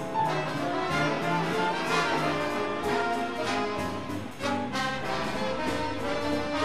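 Orchestral background music with brass instruments prominent.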